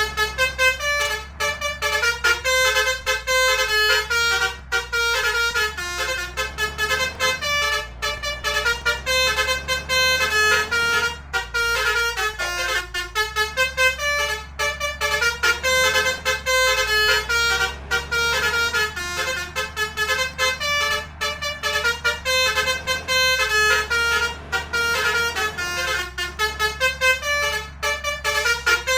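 Basuri multi-trumpet 'telolet' bus horn playing a fast tune of short stepping notes without pause, over a steady low hum.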